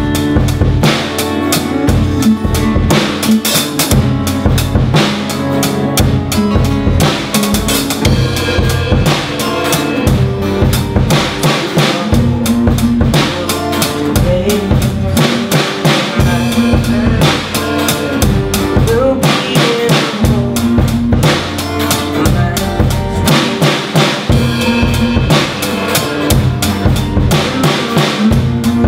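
A band playing live through an instrumental passage: a drum kit keeps a steady beat of bass drum and snare hits under an electric guitar and two strummed acoustic guitars, one of them nylon-strung.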